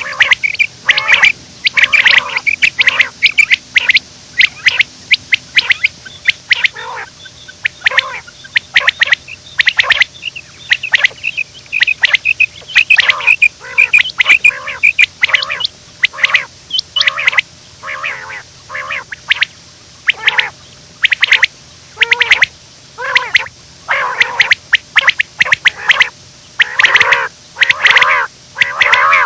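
Quail calling over and over: short, loud calls in quick runs separated by brief pauses.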